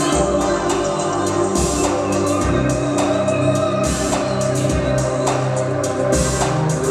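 Instrumental music with a steady drum-kit beat and sustained pitched instruments.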